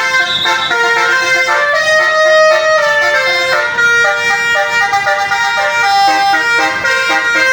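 Basuri telolet multi-tone horn playing a melody: a continuous run of held, reedy horn notes stepping from pitch to pitch every fraction of a second.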